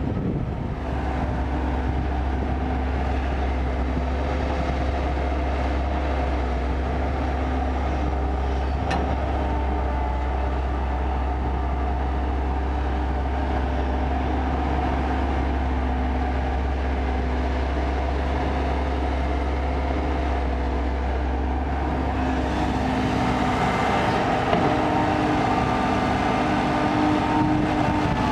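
Kobelco excavator's diesel engine running steadily under hydraulic load while digging and loading soil, with a steady drone. About three-quarters of the way through, the engine note rises and gets slightly louder as the machine works harder.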